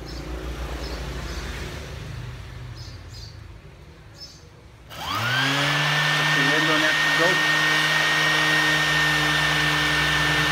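Small electric sander (100 V, 160 W) switched on about halfway through. Its motor spins up with a rising whine, then runs at a steady speed with a high whine over it. Before that there are only a few faint handling clicks.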